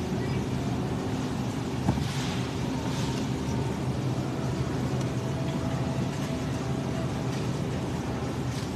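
Steady low machine hum of a supermarket's refrigerated produce display, with one small knock about two seconds in.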